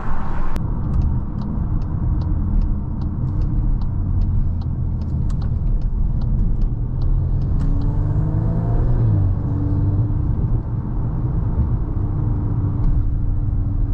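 Cabin sound of a 2023 Volkswagen Golf R under way: a steady low road and engine rumble from its turbocharged 2.0-litre EA888 four-cylinder. A light ticking, about three a second, runs through the first half, and about eight seconds in the engine note rises as the car accelerates, then settles into a steady hum.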